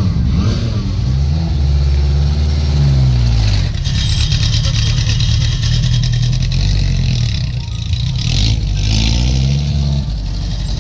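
Classic Alpine-Renault A110 rally car's engine revving as the car pulls away and drives off, the revs rising and falling several times, with a harsher edge from about four seconds in.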